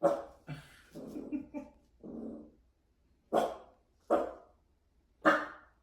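Dachshund barking in short sharp barks, two at the start and three more in the second half, with lower growling in between, as it barks at a bone it seems threatened by.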